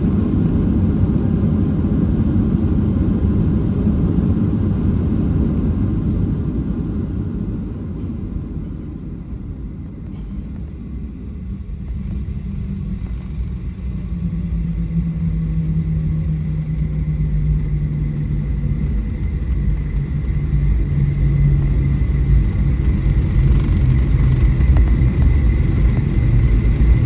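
Cabin noise of a Boeing 737-700 rolling on the ground after landing: a loud, steady rumble from its CFM56 engines and the airframe. The rumble eases about eight seconds in, then builds again with a low hum and a thin, high engine whine.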